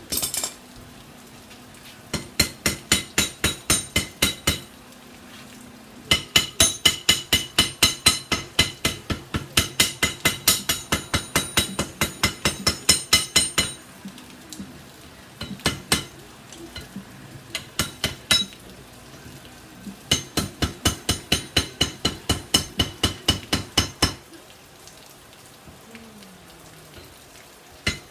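Ball-peen hammer striking a hot railroad-spike axe head on a steel anvil in three runs of quick blows, about four a second, each blow ringing brightly, with a few single strikes between the runs. The smith is trying to draw down the lug beside the eye of the axe.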